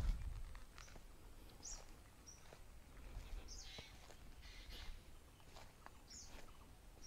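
Wild birds chirping in a sal forest, with short high calls repeating every second or so. A low rumble fades out in the first half second.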